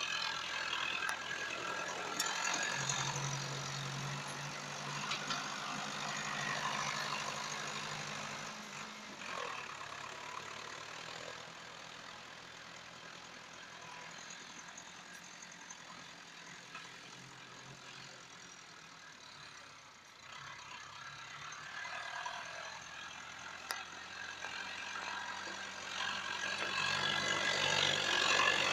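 Massey Ferguson 285 S 4x4 tractor's diesel engine running steadily as it pulls a tillage implement across the field. It fades as the tractor works away, about a third of the way in, and grows louder again near the end as it comes back close.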